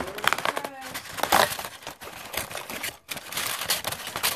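Cardboard door of a chocolate advent calendar torn open by hand: a quick run of crackling rips and crinkles.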